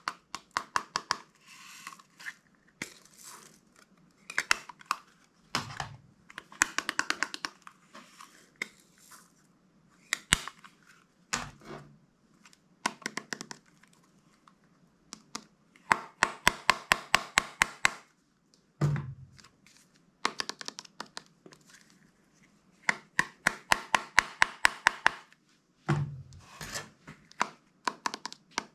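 Slime being pressed, folded and squeezed by hand, giving bursts of rapid sticky clicks and pops, a few seconds at a time with short pauses between, and an occasional soft thud as the mass is folded over.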